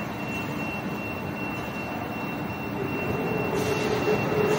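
Electric mold flipper's motor drive running with a steady high whine over mechanical noise; a lower hum comes in about three seconds in and the sound grows louder.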